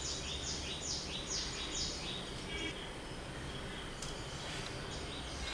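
Small bird chirping: runs of quick, high notes, each sliding down in pitch, several a second, with a second run about four seconds in. A low steady hum sits underneath.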